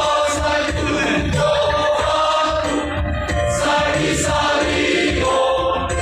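A choir singing a hymn in several-part harmony, holding long notes over a steady low accompaniment.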